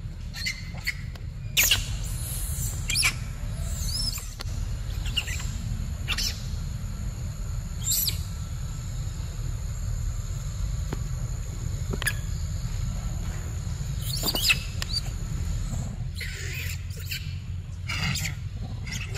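Outdoor forest ambience: short, high, chirping animal calls every second or two, some sweeping up or down in pitch, over a steady thin high drone and a low rumble.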